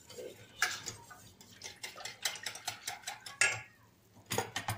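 Wire whisk stirring a milk and starch mixture in a stainless steel saucepan, its wires ticking and clicking rapidly and unevenly against the pan, with a louder clatter near the end.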